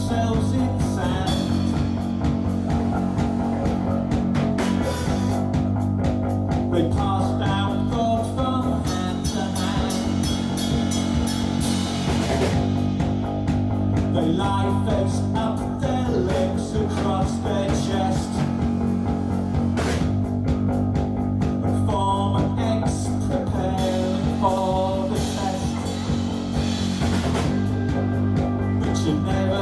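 Rock song's instrumental passage: a guitar plays a melody with pitch bends over a steady low accompaniment.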